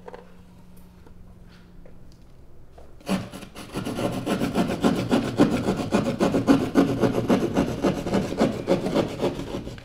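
Hand drywall saw cutting through a drywall wall with rapid back-and-forth strokes, starting about three seconds in after a quiet stretch of faint scratches.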